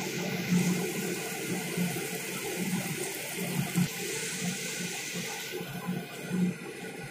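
Steady rushing, splashing water, with an uneven low rumble underneath.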